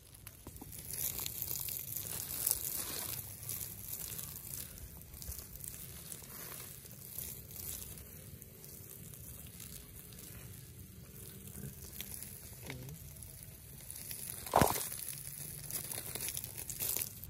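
Water spraying from a hand-held garden hose in a wide fan, hissing and spattering onto loose soil and seedlings. The spray starts about a second in and wavers in strength. One sharp knock near the end.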